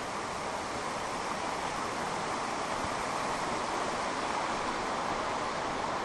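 Steady rush of a stream flowing over rocks, slowly getting a little louder.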